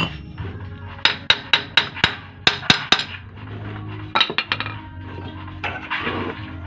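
Hammer blows on metal at a Kia Bongo's rear brake drum and hub: a quick run of about nine sharp, ringing strikes, then a few lighter knocks about four seconds in.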